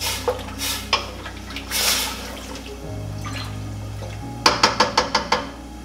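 A wooden spoon stirring beets and potatoes in water and broth in a stainless steel stockpot: liquid swishing and sloshing, then a quick run of sharp knocks as the spoon strikes the pot near the end. Background music with a low bass line plays underneath.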